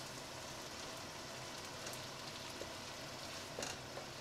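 Goat mince frying in oil in a pot: a quiet, steady sizzle and crackle. A light knock of the wooden spatula on the pan about three and a half seconds in.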